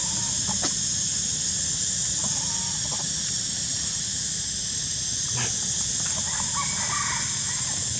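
Steady high-pitched drone of insects in the forest. Faint calls rise and fall briefly about two seconds in and again near the end.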